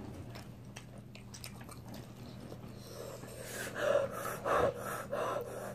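Chewing, then a few short, sharp breaths blown out through pursed lips in the second half, the huffing of someone whose mouth is burning from very spicy chicken wings. A low steady hum runs underneath.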